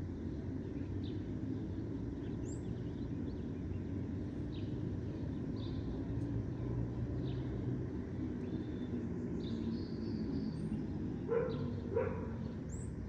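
Park ambience at dusk: a steady low city rumble with scattered short bird chirps, and a dog barking twice near the end.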